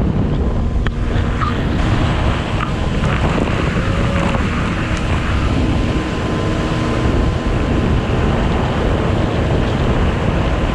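Heavy wind buffeting the microphone on a fishing boat running at speed, over the steady drone of its Evinrude outboard and the rush of the hull's wash on the water.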